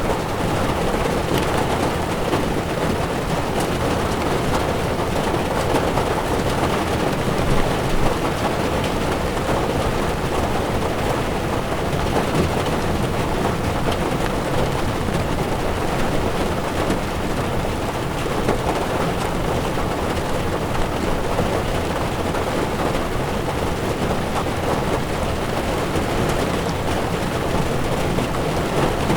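Heavy rain falling on a car's windshield, heard from inside a moving car along with the steady hiss and rumble of tyres on a wet road.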